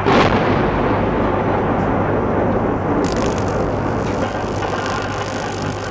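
Microwave-oven transformer humming steadily while a plasma arc from the magnetron burns with a loud hissing crackle. It starts suddenly and turns sharper and more crackly about three seconds in.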